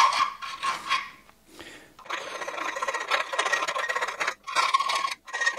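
A small hand file rasping back and forth inside a hole in a powder-coated bracket, scraping the powder coating out. Quick strokes run for about the first second, then a short pause, then steady filing again.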